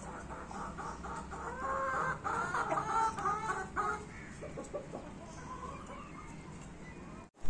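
Gamefowl chickens clucking: a run of rapid, repeated clucks, loudest between about two and four seconds in, then quieter.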